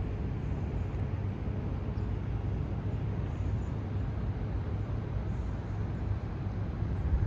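Steady low rumble of city background noise, distant traffic with a faint steady hum under it.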